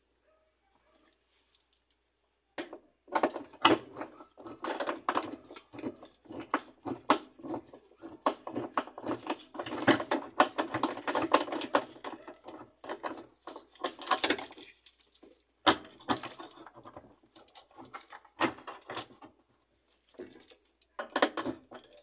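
Gloved hands handling and fitting a washing machine's electric motor on its mounting, making irregular metallic clicks, knocks and rattles. It is quiet for the first couple of seconds, and the handling is busiest around the middle.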